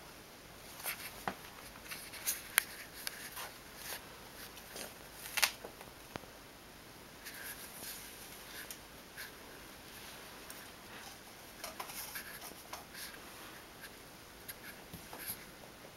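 A cat rolling and kicking at a fabric catnip toy on a wooden floor: scattered light scratches and clicks of claws and the toy scuffing, with soft rustling in between. The sharpest clicks come about two and a half and five and a half seconds in.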